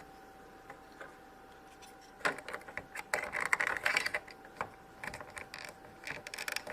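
Small plastic toy pieces being handled: light clicks and rustling, thickest in a cluster around the middle, as a clip-on dress is fitted onto a little plastic doll. A faint steady hum runs underneath.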